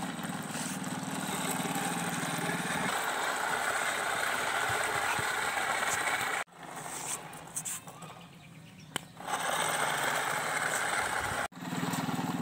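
Small battery-powered motor of a homemade cardboard toy truck running steadily with a fast whirring flutter. The sound cuts off abruptly about six and a half seconds in and comes back quieter for a few seconds. It breaks off sharply again near the end.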